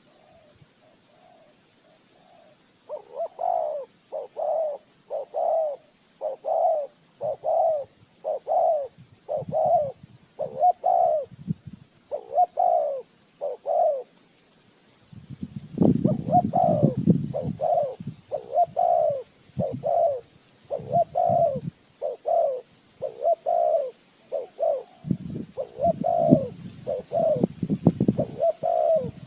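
Spotted dove cooing, a long run of short coo notes about one a second, faint at first and louder from about three seconds in. From about halfway, a low rumble comes and goes under the calls.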